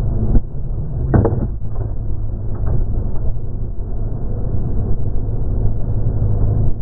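Sport motorcycle engine running under way, heard from an onboard camera mounted on the bike, with wind rushing over the microphone. A few sharp knocks stand out about a second in and again a little later.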